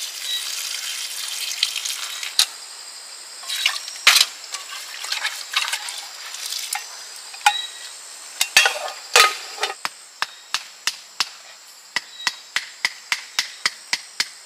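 Rustling and crackling with scattered sharp knocks, settling about halfway through into a steady run of short, sharp knocks, two to three a second, like chopping with a blade.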